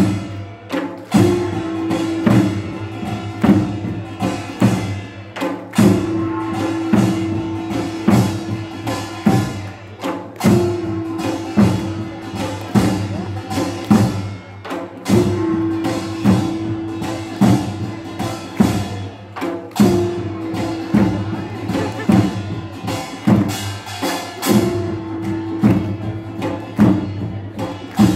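Korean folk percussion band of gongs and barrel drums (buk) playing a lively repeating rhythm for a masked dance. Many sharp drum and gong strikes, with a ringing gong stroke held for a second or so about every five seconds.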